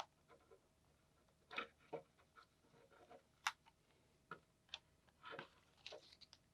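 Faint, scattered small clicks and brief rustles from handling Sony MDR-V6 headphones and a worn, flaking earpad just pulled off the cup.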